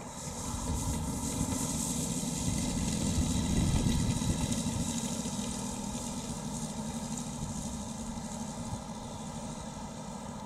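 Two Saito FG-19R3 three-cylinder four-stroke gasoline radial engines, turning three-blade propellers, running steadily at low throttle as the model taxis. They grow louder to a peak about four seconds in, then fade gradually as the plane moves away.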